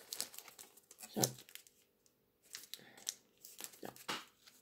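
Faint, scattered crinkling, rustling and light taps of a cardboard advent calendar and its wrapped football-card packs being handled, with a brief near-silent pause about two seconds in.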